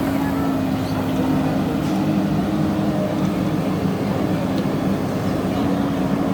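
Heavy construction machine's diesel engine running steadily at constant speed, a continuous drone with a held pitch.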